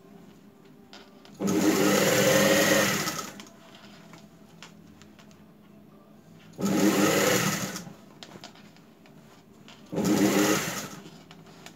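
Industrial sewing machine stitching a seam through denim in three runs, the first about two seconds long and the others about a second each. Each run falls in pitch as the machine slows to a stop.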